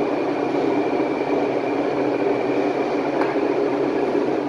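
Commercial onion-frying machine (20 kg per batch) running steadily while frying onions: an even mechanical rumble with a faint steady high whine, and a small click about three seconds in.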